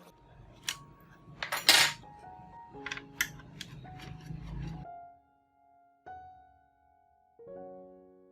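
Background music with piano-like notes, over small metallic clicks and clinks of screws and a screwdriver being handled on a laptop's base, the loudest a short clatter about a second and a half in. The music breaks off about five seconds in and resumes near the end.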